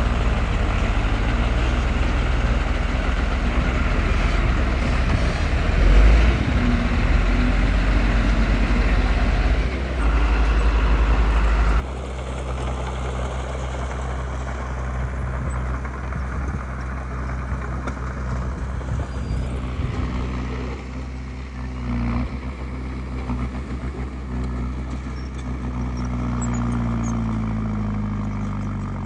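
Diesel engines of heavy earthmoving machinery running steadily under work. The level drops suddenly about 12 seconds in, and the engine pitch shifts up and down near the end.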